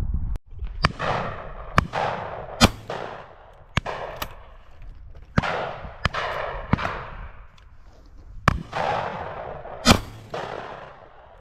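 About ten shotgun shots fired at driven pheasants from several guns along the line, at uneven intervals and varying loudness. Each shot has a long echoing tail, and the two loudest come about two and a half seconds in and near the end.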